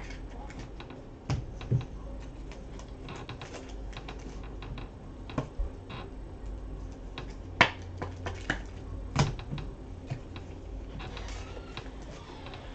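Panini Prizm basketball trading cards being handled and sorted by hand: irregular sharp clicks and light taps as cards are flipped, slid and set down, over a low steady hum.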